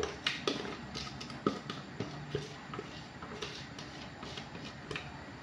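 Scattered light clicks and taps of kitchenware, irregular and a few a second, as a blended liquid mixture is poured from a blender jug into a glass mixing bowl.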